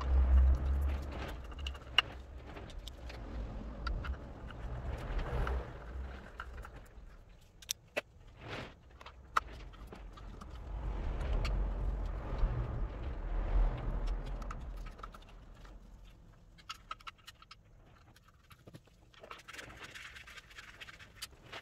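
Hand-tool clicks and metal clinks as the hex bolts of a clutch pressure plate are run in, over uneven low bumps and rustling from the worker moving under the car. The loudest bump comes right at the start.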